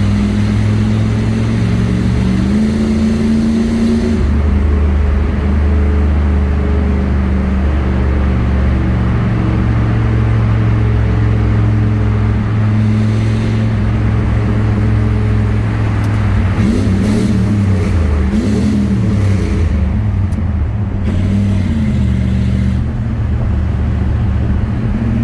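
1987 Pontiac Firebird Trans Am's 5.7-litre TPI V8 running loud at speed in a highway tunnel, its exhaust note shifting up and down with the throttle. Engine speed wavers up and down with a few quick revs about two-thirds of the way through.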